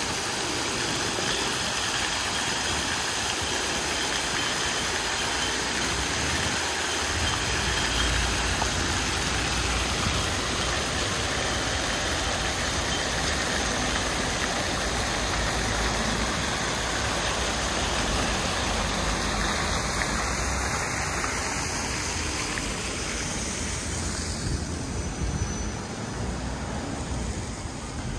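Fountain jets spraying and splashing down into the basin: a steady rushing hiss, under a low hum of street traffic. Near the end the water fades and the traffic is left.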